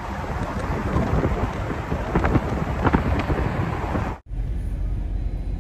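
Wind buffeting the microphone of a camera held at the open window of a moving car, over road and engine noise. About four seconds in it cuts off abruptly and gives way to a steadier, lower rumble.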